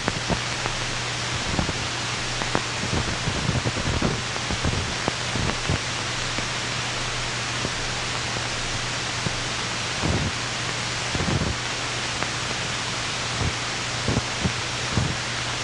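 Steady hiss with a low hum and scattered irregular crackles and pops: surface noise of a worn 1970s film soundtrack.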